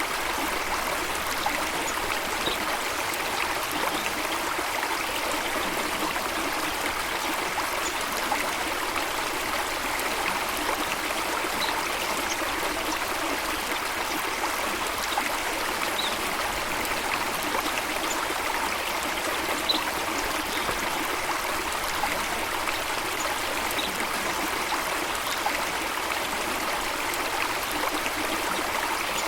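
Running water flowing steadily, an even splashing rush that never changes, with a few faint, brief high peeps now and then.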